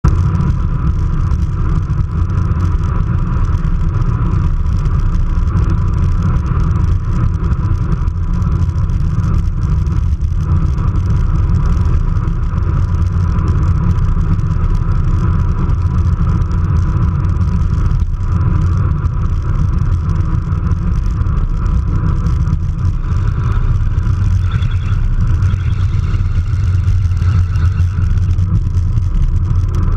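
Steady, loud wind rumble over the microphone of a bicycle-mounted camera on a fast road descent.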